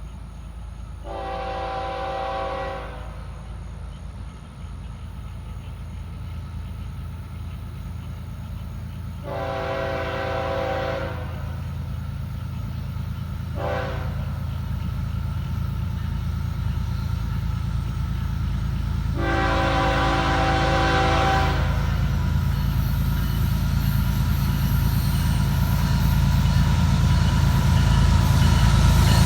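Florida East Coast Railway diesel locomotives approaching and sounding the air horn in the grade-crossing signal: long, long, short, long, each blast a steady multi-note chord. Under the horn, the low rumble of the engines and train grows steadily louder as it draws near.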